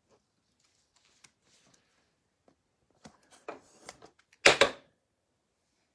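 Foil-wrapped trading cards being handled and shuffled in the hand: faint rustles and light clicks, then one short, loud scuff of cards sliding about four and a half seconds in.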